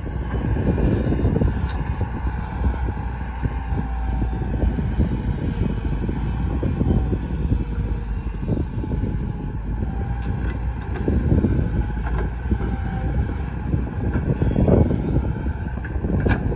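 JCB JS205 tracked excavator's diesel engine working hard as the machine digs and swings, with occasional knocks from the bucket and soil.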